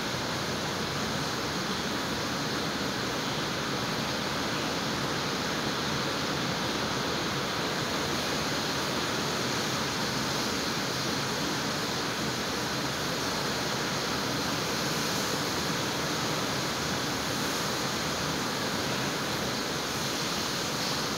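Heavy rain falling steadily in a downpour: an even, unbroken hiss.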